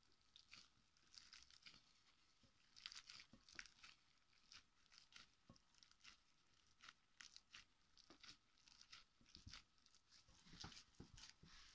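Faint, irregular squishing and crackling of a gloved hand squeezing and mashing boiled bananas in a ceramic bowl.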